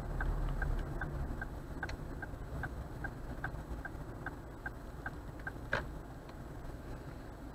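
A car's turn indicator ticking steadily, about two and a half clicks a second, over the low rumble of the car's engine and road noise, which eases as the car slows to a stop. One sharper click about six seconds in.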